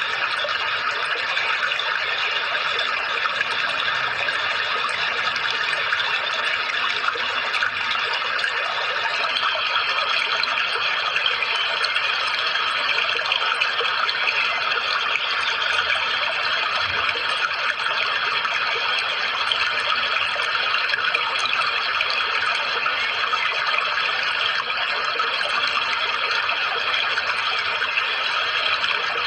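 Steady rushing of running water, like a stream or small waterfall, kept even in level throughout, with a faint steady high whine underneath.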